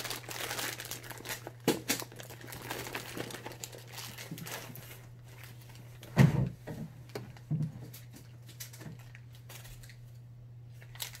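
Plastic packaging crinkling and rustling as it is handled, with a few sharper knocks; the loudest, a dull thump, comes about six seconds in.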